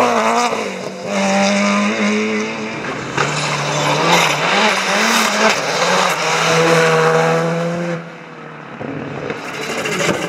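Rally cars driven flat out past the stage side in separate edited clips: a BMW E30 rally car's engine revving up and changing gear, then a Škoda Fabia Rally2's turbocharged engine pulling hard through the gears. Near the end there is a quieter, duller stretch.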